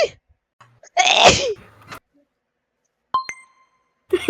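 A sneeze about a second in, loud and high-pitched, right after the tail of another. Around three seconds in come two quick metallic dings that ring briefly.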